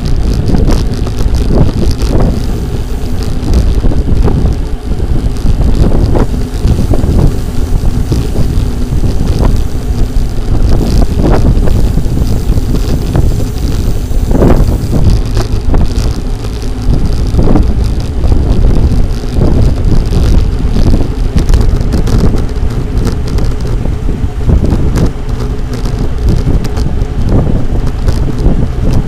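Heavy wind noise on the microphone while riding a bicycle, over a low steady road rumble, with a few short thumps around the middle.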